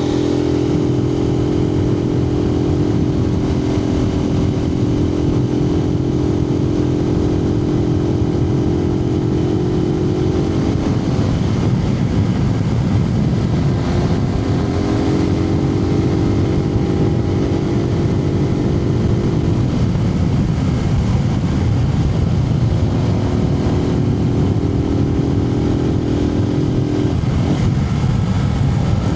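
Suzuki TU250X's single-cylinder engine running at steady road speed under dense wind and road noise, heard from a microphone inside the rider's helmet. The engine note drops away three times, about 11, 20 and 27 seconds in, then returns.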